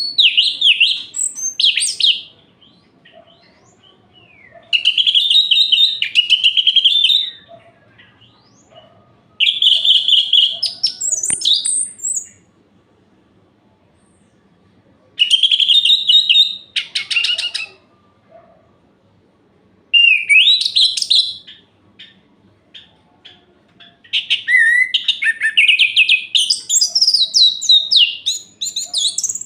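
Orange-headed thrush singing: six rich, varied phrases of quick high notes, each lasting a few seconds and separated by pauses of two to three seconds; the last phrase runs longer, about five seconds.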